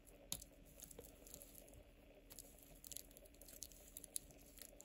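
Near silence with faint scattered light clicks and rustling: gloved fingers handling a stainless steel Jubilee-style watch bracelet and clasp.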